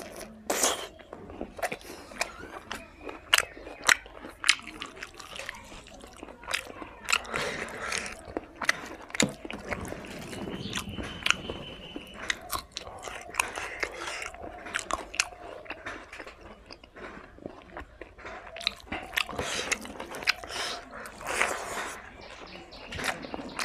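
A person chewing and biting mouthfuls of fried pork and rice, eaten by hand, with many sharp irregular mouth clicks.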